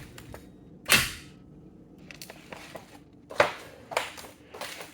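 A few sharp knocks or clunks with quiet between them: a loud one about a second in, another loud one about two and a half seconds later, then a couple of softer ones.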